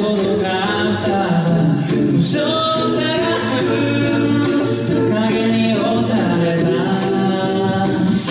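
Six-voice a cappella group singing live: a lead voice over close sung harmonies and a low sung bass line, with the ticks of vocal percussion.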